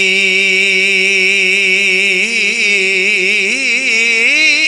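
A man's voice holding one long sung note of devotional verse, steady at first, then breaking into wavering ornamental turns that climb in pitch from about two seconds in.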